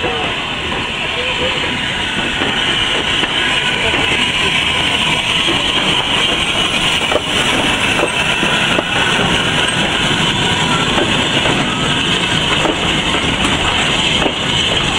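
Peckett saddle tank steam locomotive with its open passenger wagons rolling past close by, with wheel and rail clatter, growing louder over the first few seconds as it comes near. Voices of the people nearby mingle with it.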